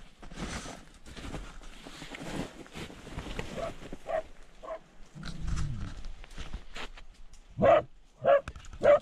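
Terrier barking three times in quick succession near the end, from a badger tunnel. Faint rustling comes before it.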